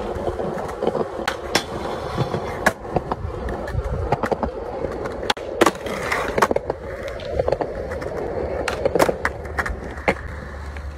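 Skateboard wheels rolling over smooth concrete with a steady rumble, broken by a string of sharp clacks as the board strikes the ground. There is a cluster of clacks about midway as the board rides along the edge of a concrete ledge, and another near the end.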